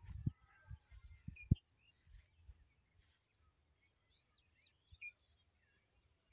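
Small birds chirping, with many short, quick chirps and little pitch sweeps scattered throughout. A few low thumps in the first second and a half, the loudest about a second and a half in.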